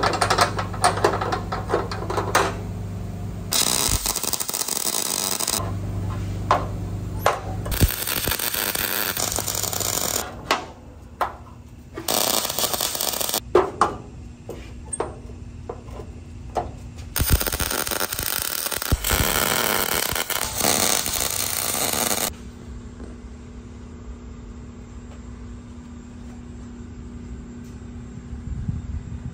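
MIG welder plug-welding a sheet-steel bed brace to the truck bed floor: several bursts of arc crackle, each lasting one to five seconds, with clicks and knocks of clamps and handling between them. The welding stops about two-thirds of the way through, leaving a steady low hum.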